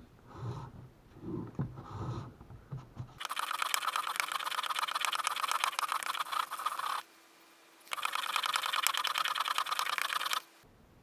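Chisel bevel in a sharpening guide being rubbed on 1000-grit sandpaper over tile: two long spells of dense gritty scratching with a short pause between, after a few faint handling knocks at the start.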